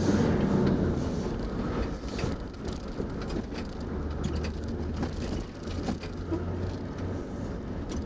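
Four-wheel drive driving along a rough dirt track, heard from inside the cabin. A steady low engine hum runs under many scattered knocks and rattles.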